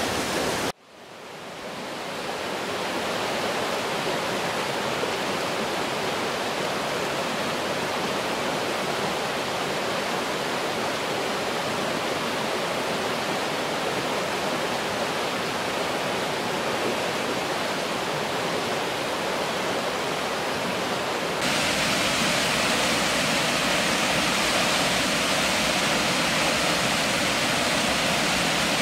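Rushing water of a rocky river and its small waterfalls, a steady rush of noise. It drops out briefly about a second in and fades back up, then turns louder and brighter about two-thirds of the way through.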